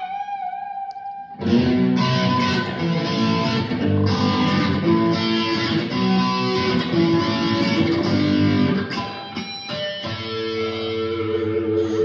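Electric guitar played through a small amp. A held note rings out first; then about a second and a half in, loud strummed chords and riff come in until about nine seconds, followed by a few held notes.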